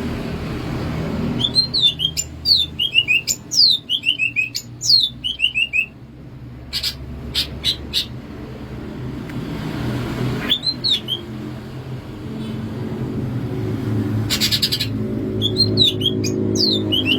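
Cucak ijo (green leafbird) singing: quick series of high, down-slurred whistled notes, each falling in pitch, given in bursts with pauses between, in the bird's 'bebeciu' song pattern.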